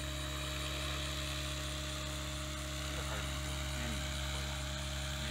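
Align T-Rex 700E electric RC helicopter in flight, its electric motor and spinning rotors giving a steady whine.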